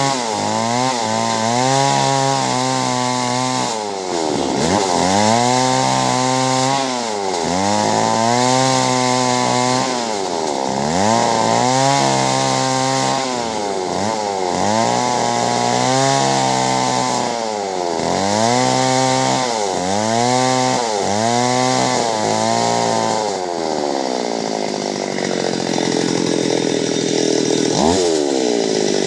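Two-stroke chainsaw cutting clove-tree wood, its engine revving up, holding and falling back again and again, about every two seconds. A little past twenty seconds in it drops back toward idle, with one short rev near the end.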